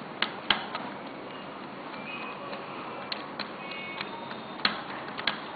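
Scattered sharp clicks and taps of plastic and metal as the opened DVD writer's mechanism and screws are handled, about eight irregular clicks over a steady background hiss.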